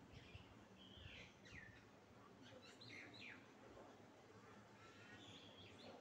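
Faint, soft chirps and squeaky notes from caged green parakeets. There are a few short notes about a second in, a cluster near the middle, and more near the end.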